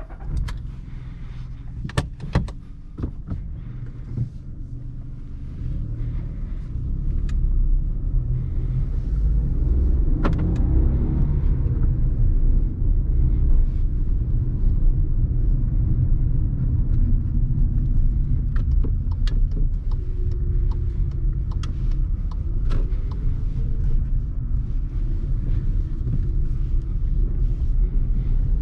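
Cabin sound of a 2019 Volkswagen Polo with the 1.0-litre three-cylinder 80 HP petrol engine and manual gearbox, setting off and driving. A few sharp clicks come in the first few seconds. Then a steady low engine and road rumble builds from about six seconds in, with the engine note rising as the car accelerates.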